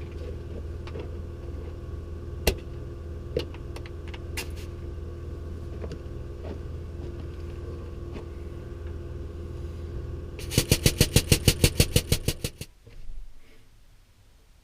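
A steady machine hum with a few scattered sharp clicks. Near the end comes about two seconds of rapid loud knocking, roughly ten knocks a second, after which the hum stops.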